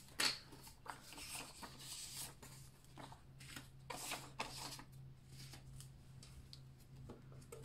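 Prop paper bills rustling and crinkling in short bursts as they are handled and slipped into a binder envelope, over a faint steady low hum.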